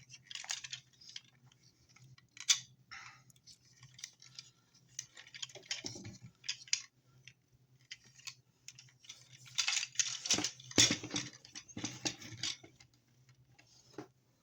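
Hard plastic toy robot figures being handled, with irregular clicks, taps and rattles of parts moving and knocking together, busiest about ten seconds in. A faint steady low hum runs underneath.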